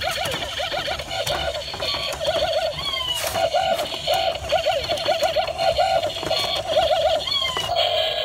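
Electronic dancing robot toy playing its built-in tune through a small speaker: tinny synthesized music of quick warbling, trilling notes, with falling whistle-like glides about three seconds in and again near the end.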